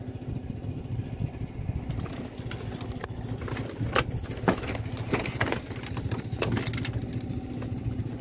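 A small engine runs steadily at idle throughout. From about two seconds in it is joined by a scatter of short clicks and knocks.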